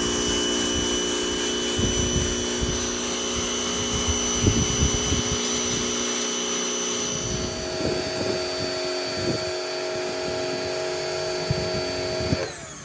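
Cheap electric plug-in pressure washer running, its motor and pump whining steadily as it sprays in a wide fan. The pitch shifts about halfway through, and it cuts off shortly before the end.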